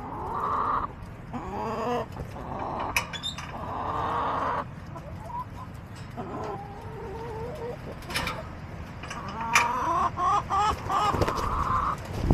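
A backyard flock of hens clucking and calling: drawn-out calls mixed with runs of short clucks, and a couple of sharp clicks.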